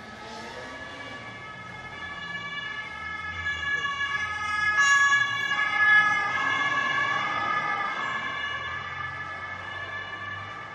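Ambulance siren passing by. It swells to its loudest about five to six seconds in, then fades away, with a low rumble of vehicle noise underneath.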